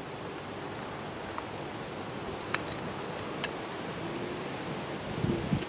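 Steady background hiss with a few light, sharp clicks as small glass pieces are handled and fitted together, and a duller knock near the end.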